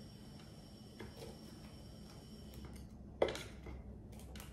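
A single sharp knock of a wooden stick against the waffle iron's grid plate about three seconds in, with a smaller tap about a second in, as a stuck waffle is pried loose; otherwise quiet room tone.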